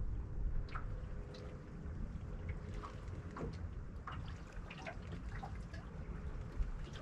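Water lapping against a boat's hull in short, scattered splashes and drips, over a low rumble of wind on the microphone.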